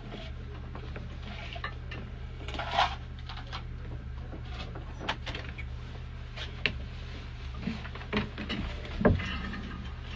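Room tone with a steady low hum and scattered small knocks and clicks, the loudest about three seconds in and near the end.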